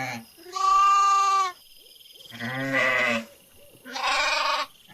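Goat bleating three times. The first call is clear and steady; the next two are rougher and harsher.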